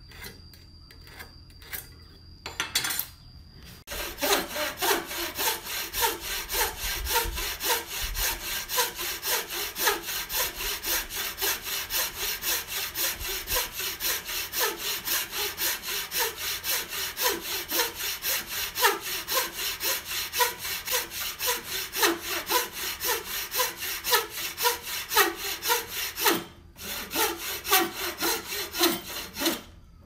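Wooden frame saw (bow saw) cutting through a small block of wood held in a clamp, in a steady rhythm of back-and-forth strokes. The sawing starts a few seconds in, stops briefly near the end and picks up again.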